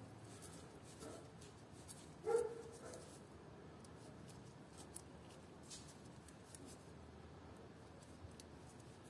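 Faint clicks and rustles of small-parts handling as wires and a crimp connector are worked by hand, with one short pitched yelp about two seconds in.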